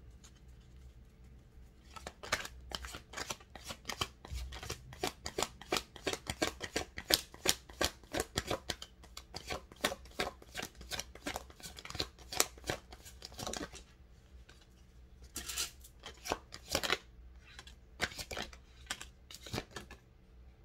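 A deck of reading cards being shuffled by hand: a fast run of crisp card clicks from about two seconds in, a brief pause near the middle, then more shuffling.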